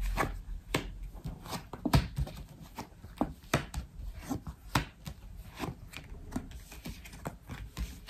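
Reading cards being shuffled by hand: a string of irregular soft clicks and slaps, two or three a second.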